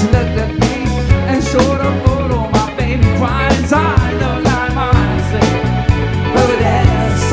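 Live rock band playing, with a drum kit on a steady beat of about two strokes a second under bass guitar and electric guitar.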